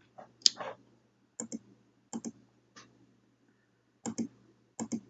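Computer mouse button clicking, mostly in quick pairs about four times, with a louder, longer clatter about half a second in. A faint steady low hum runs underneath.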